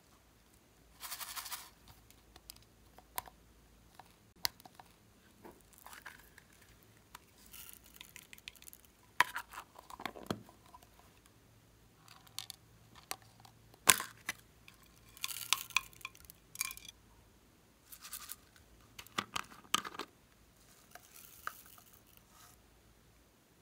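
Scattered clicks, taps and short rustles of plastic slime containers and small bottles being handled, with beads and glitter shaken out onto slime in a glass tray. The loudest is a sharp click a little past halfway.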